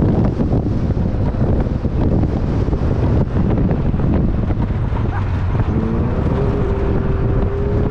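Heavy wind buffeting on the microphone over a side-by-side UTV's engine running at speed across sand. Near the end a steady pitched tone is held for about two seconds.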